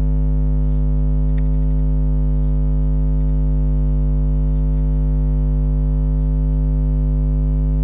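Loud, steady electrical mains hum with a stack of evenly spaced overtones, unchanging throughout, with a few faint ticks above it.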